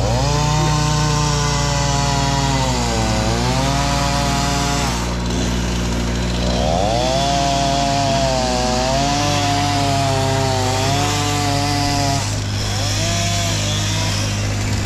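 Chainsaw revving up and cutting in two long runs, its pitch sagging as it bites into the wood, then a couple of short revs near the end. A steady low engine hum runs underneath.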